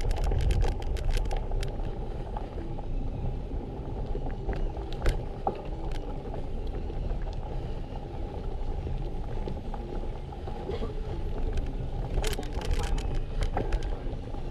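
Wind buffeting the microphone with road rumble from a moving bike, with scattered clicks and rattles, most of them near the start and again near the end.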